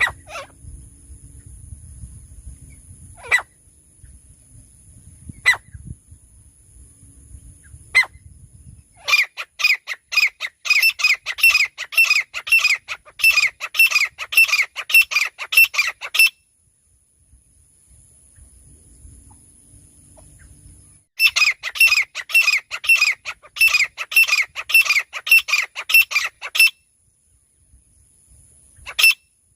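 Francolin (teetar) calling: a few single sharp calls, then two long runs of rapid repeated calls at about three to four a second, and one last call near the end.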